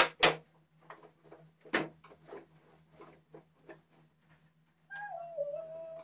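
Hard knocks and light clatter: two loud knocks at the very start, another just under two seconds in, with smaller clicks between. From about five seconds a single sustained tone sets in, wavering and sinking slightly.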